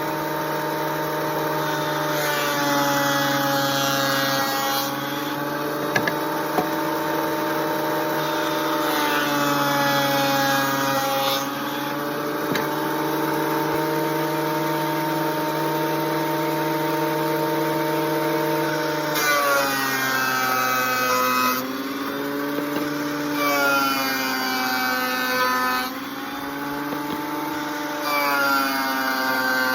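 Craftsman benchtop planer running with a steady motor whine. Several times a board feeds through the cutterhead: the pitch sags under the load and a rougher cutting sound rises, then the motor recovers.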